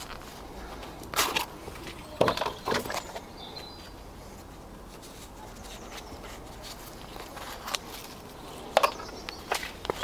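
Scattered short rustles and knocks of potted tomato plants and their pots being handled, with a few clustered together about a second, two seconds and three seconds in, and more near the end.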